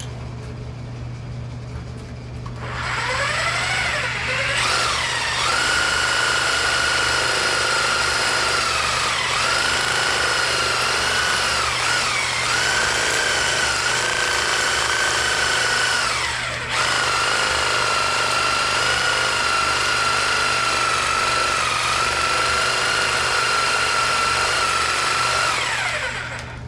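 Reciprocating saw rigged as a paint stirrer, its long blade fixed with two hose clamps, running in a can of paint. The motor spins up with a rising whine a couple of seconds in and then runs at a steady high pitch, wavering a few times. It eases off briefly past the middle, then runs again and stops near the end.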